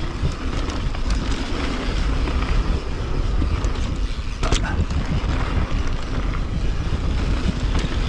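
Wind buffeting the camera's microphone over the rumble of a mountain bike rolling fast down a dirt singletrack, with a few sharp knocks and rattles from the bike, the loudest about four and a half seconds in.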